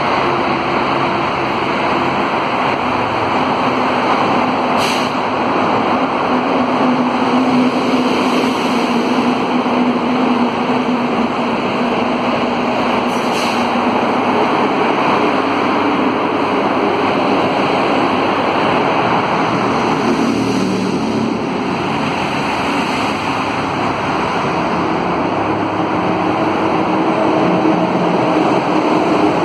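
Alstom AS 02 steel-wheeled metro train coming into the station and standing at the platform. It makes a continuous rumble with a low steady hum, and there are two short clicks.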